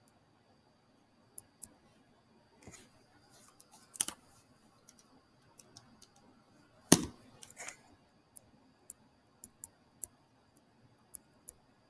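Scattered light clicks and taps of a stylus writing on a tablet, with one louder knock about seven seconds in.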